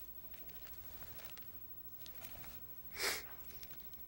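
Quiet small-room tone with faint rustling as a preacher at a pulpit looks for a Bible passage, then one short, sharp sniff through the nose close to the microphone about three seconds in.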